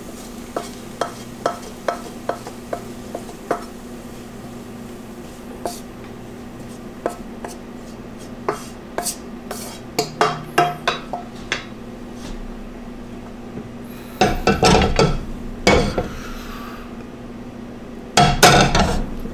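Wooden spatula tapping and scraping fried rice out of a nonstick wok onto a plate: a run of light, sharp taps, then louder spells of scraping and clatter near the end as the wok goes back on the gas stove and is scraped.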